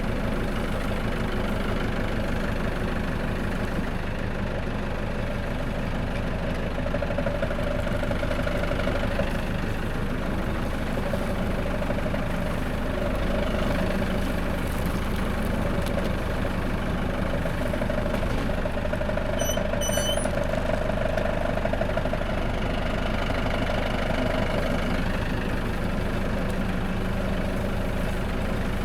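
Tractor engine running steadily, with a couple of brief high metallic clinks about two-thirds of the way through.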